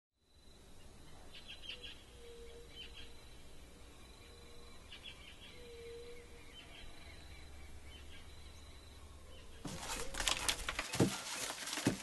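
Faint birds chirping over a low outdoor rumble. About ten seconds in, a dense, loud crackling and rattling starts: dry maize kernels being twisted off the cob by hand and pattering down.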